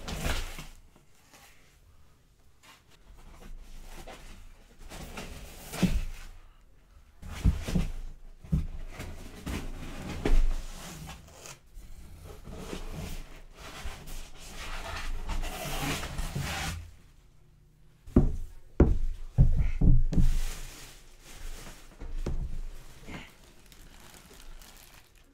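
Clear plastic wrapping crinkling and rustling, with scattered knocks and thumps as a large, heavy statue base is handled and lifted out of a foam-lined packing box.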